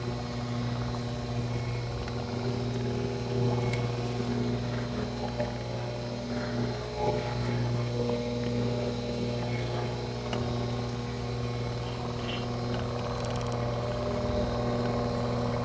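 A steady electric motor hum that holds one pitch throughout, with a few faint clicks.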